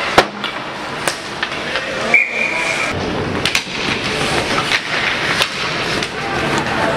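Ice hockey game heard from the stands: several sharp clacks of sticks and puck over a steady din, and a referee's whistle blown once, short and high, about two seconds in.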